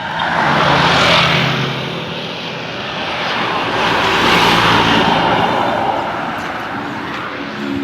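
A bus driving past with its engine running and a broad rushing noise that swells twice, about a second in and again around four to five seconds in.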